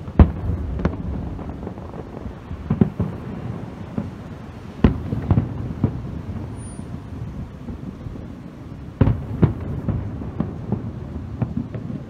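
Aerial firework shells bursting in a display: about ten sharp booms spaced unevenly, with a low rumble between them. The strongest bangs come near the start, about five seconds in and about nine seconds in.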